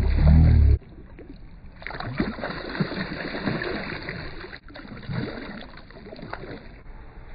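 A boat on the water: a loud low rumble that cuts off suddenly just under a second in, then quieter uneven water and boat noise with small knocks and crackles.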